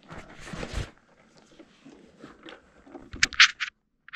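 Clothing and a chest-mounted camera harness being handled right at the microphone: a rustle in the first second, then a quick run of about four loud scraping strokes a little over three seconds in, and one short scrape near the end.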